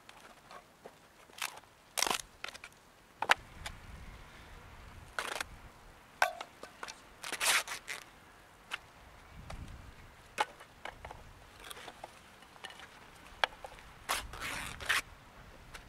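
Paper being ripped by hand off a wooden frame: irregular tearing rips and crackles, with a few sharp clicks between them.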